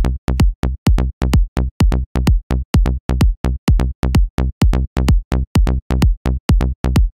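Plucky synth bass patch in Xfer Serum playing a repeating line of short notes, about four a second, over a kick drum. The raw sawtooth is heard through a low-pass filter that an envelope sweeps down fast, so each note opens bright and closes quickly. The oscillator's random start phase is off, so every note begins at the same point of the wave with the same punchy attack.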